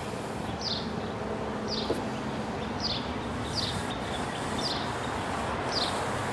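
A bird repeating a short, high, falling chirp about once a second, over steady background noise.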